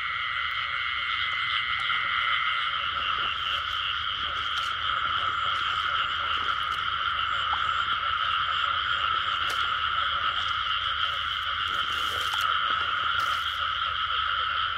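Dense breeding chorus of many frogs calling at once, a steady, unbroken din.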